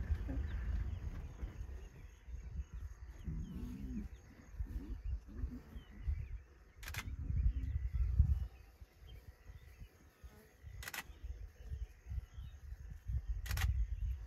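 Low, pitched animal calls from predators feeding at a buffalo carcass, a few seconds in, over a low rumble. Three sharp clicks follow later.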